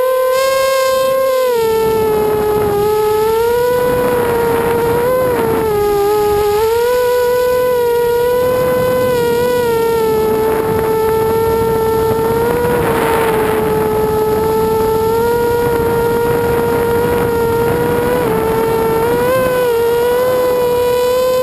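Brushless motors and propellers of an ImmersionRC Vortex racing quadcopter in flight, heard from on board: a loud, steady whine with a hiss of rushing air, its pitch dipping and rising slightly as the throttle changes.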